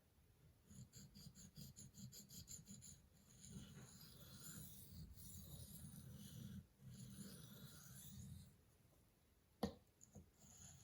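Steel knife blade scraping across a sharpening stone in light back-and-forth strokes to take the burr off the edge: quick short strokes, about five a second, for the first few seconds, then slower, longer passes. A single sharp click near the end.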